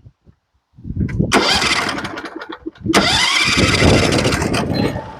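Portable sawmill's engine starting up about a second in and then running loud, with a sharp break just before the three-second mark. It sounds odd because the microphones are noise-cancelling.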